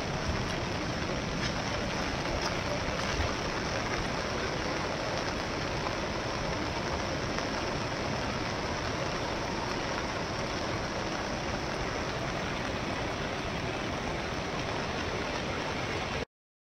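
Steady rushing of a river in flood, an even wash of water noise that cuts off suddenly near the end.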